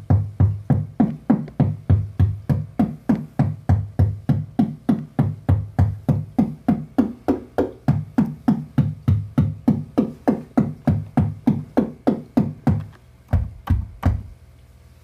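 Make Noise 0-Coast synthesizer playing a percussive patch clocked by a drum machine: deep, pitched tom-like hits repeating evenly about four times a second. Near the end the pattern breaks off, leaving a few low thumps.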